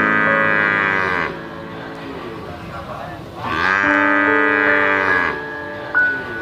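Cow mooing: two long calls, one at the start and another about three and a half seconds in, over background music with sustained notes.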